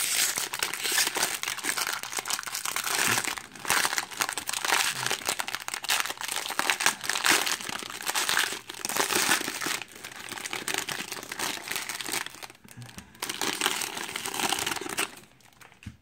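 Foil wrapper of a Bowman Draft Super Jumbo card pack crinkling as it is torn open and handled, a dense crackle that stops about a second before the end.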